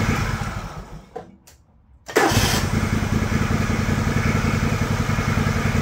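John Deere LX178 riding mower's engine is switched off and winds down to silence, then is restarted about two seconds in, catching at once and running steadily on its new replacement carburetor.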